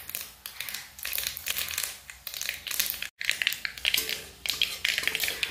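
Yellow mustard seeds crackling and popping in hot oil in a steel kadhai, an irregular patter of small pops as they temper, with a metal spatula scraping the pan now and then. The sound breaks off for an instant about three seconds in.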